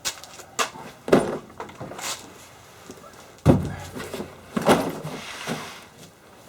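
A series of about six knocks and thuds, the loudest about three and a half seconds in, from things being moved and set down by hand.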